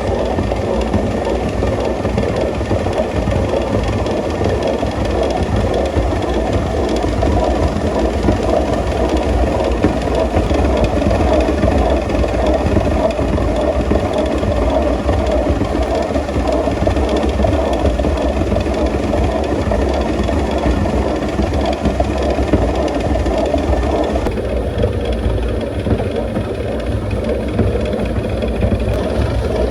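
Old flour mill machinery running steadily, grinding wheat. Its higher-pitched part drops away about twenty-four seconds in.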